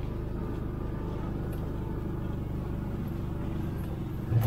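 ATV engine running steadily at a low, even pitch while the sled-dog team pulls it. It grows suddenly louder near the end.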